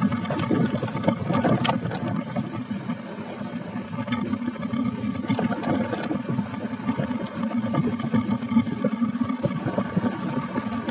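Motorcycle engine running on the move, with many short clicks and rattles over it. It eases off a few seconds in and picks up again near the end.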